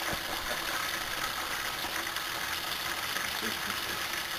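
Propane turkey fryer giving a steady hiss from the pot of hot frying oil, with the cooked turkey hanging just above it dripping grease.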